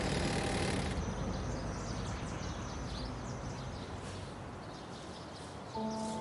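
Steady background noise with faint, scattered bird chirps, fading slowly. Background music with sustained notes comes in near the end.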